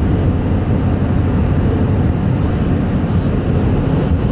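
Steady low rumble of a truck driving, heard from inside the cab.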